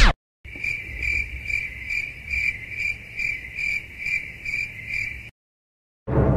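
Crickets chirping in an even rhythm, about two or three chirps a second, starting about half a second in and stopping abruptly near the end. This is the stock cricket sound effect used to mark an awkward silence.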